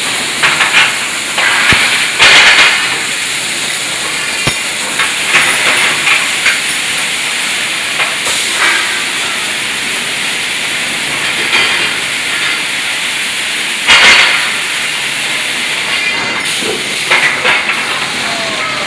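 Automatic ringlock scaffolding welding machine at work: a steady hiss with several louder hissing surges every few seconds and a couple of sharp clicks.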